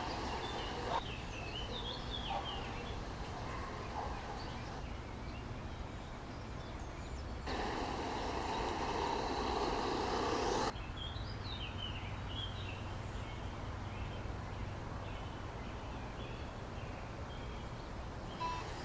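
Outdoor ambience with birds chirping in short calls over a steady low hum and background noise. The background changes abruptly about a second in, again midway, and about three seconds after that.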